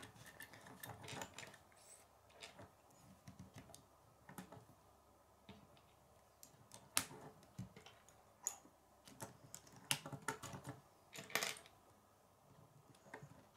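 K'nex plastic rods and connectors clicking as they are handled and snapped together: irregular light clicks, with the sharpest about halfway through and a quick cluster near the end.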